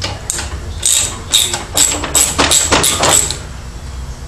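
Ratchet wrench with a 10 mm socket clicking in quick short strokes, about ten over three seconds and coming faster toward the end, as it works a valve-cover bolt loose.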